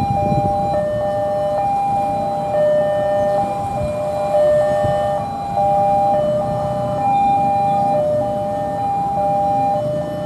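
Railway level-crossing warning alarm sounding, an electronic two-tone signal alternating between a higher and a lower note every second or so. It warns that a train is approaching. Motorcycle engines run underneath as riders cross the tracks.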